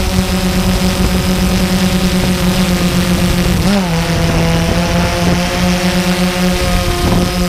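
Drone's electric motors and propellers buzzing at a steady pitch, with wind noise over the microphone. Just under four seconds in, the pitch briefly rises and then settles a little lower as the throttle changes.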